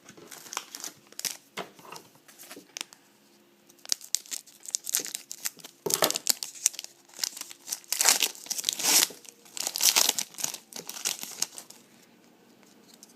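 Card pack's foil wrapper being torn open and crumpled by hand: a run of sharp crinkling and crackling that grows loudest partway through and stops about a second before the end.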